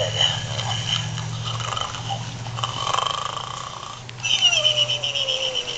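Gund Arnold snoring pig plush toy playing its electronic snore: a low buzzing snore, then about four seconds in a whistling exhale that falls in pitch.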